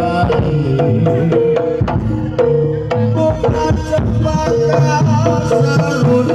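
Live jaranan music from a Javanese gamelan ensemble: kendang hand drums strike a busy pattern over sustained pitched gamelan notes.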